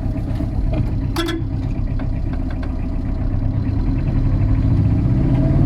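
Motor vehicle engine and road noise heard while riding along, a steady low rumble.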